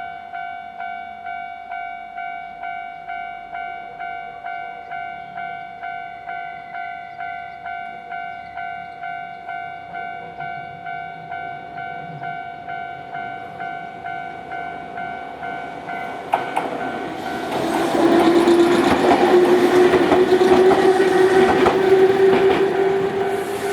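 Japanese level-crossing warning bell ringing steadily, about two strokes a second. About 17 seconds in, a Nankai Koya Line train passes over the crossing. Its wheels clatter and a whine slowly rises in pitch, drowning out the bell.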